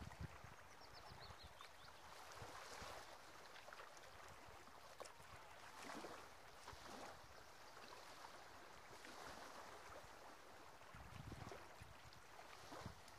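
Faint small waves lapping on a sandy, stony shore, swelling and fading every few seconds, with light wind buffeting the microphone now and then.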